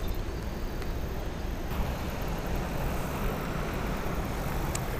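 Steady rushing of a shallow river's riffles and rapids.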